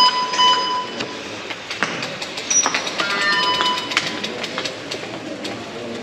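Electronic beeps, a few short steady tones sounding at the start and again about three seconds in, over a rapid ticking that runs throughout.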